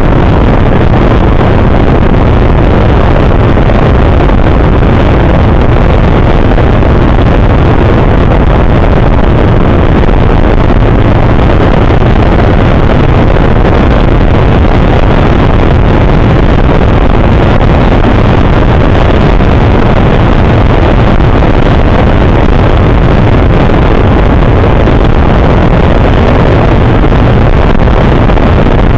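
Bass boat running at speed: a steady, loud rush of wind on the microphone mixed with the outboard motor and the hull on the water.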